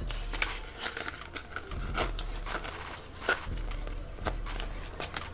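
Paper banknote and clear plastic zip envelope being handled: scattered crinkles and soft clicks as the bill goes into the pouch and the pouch is closed.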